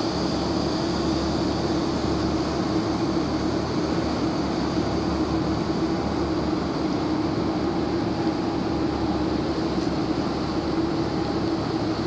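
Steady machinery drone with a constant low hum from a large container ship's engines and ventilation as it passes close by, mixed with wind and water noise.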